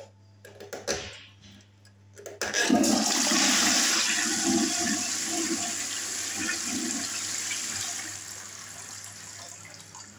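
A toilet flushing powerfully. After a few light clicks, water rushes into the bowl all at once about two seconds in and stays loud for several seconds. It then tapers off near the end.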